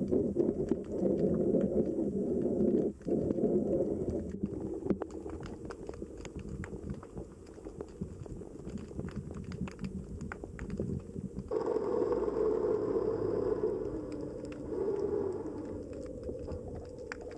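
Muffled underwater sound picked up by a submerged camera: a low rumble of moving water that comes and goes, dropping back about four seconds in and swelling again near the twelve-second mark, with scattered faint clicks and crackles throughout.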